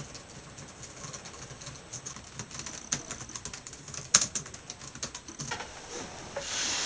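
A quick, irregular run of light clicks and taps, with one sharper click about four seconds in and a soft rush of hiss near the end.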